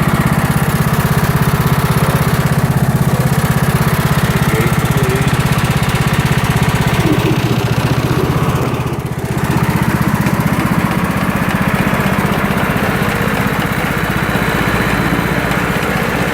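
Toro LX420 lawn tractor engine running steadily, with a brief dip in level about nine seconds in.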